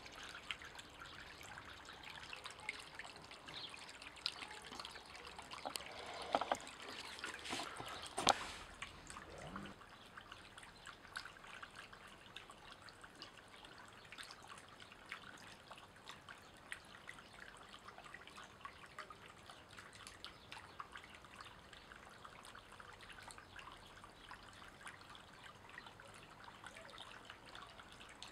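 Small granite-column garden fountain: water welling from the top of the stone and trickling and dripping down it. Louder and busier in the first third, then a quieter, steady trickle.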